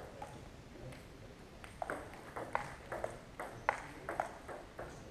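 Table tennis ball bouncing on the table and being struck by bats: a quick run of about a dozen sharp pings, roughly three a second, starting a little under two seconds in.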